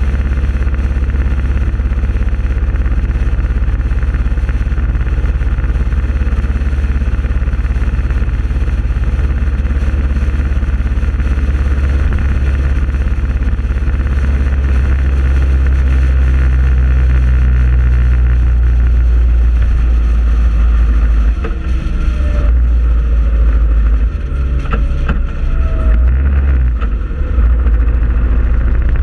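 Ride-along sound of a motor vehicle travelling at road speed: a loud, steady low rumble of wind on the microphone over engine and road noise. In the last several seconds the rumble wavers and dips briefly.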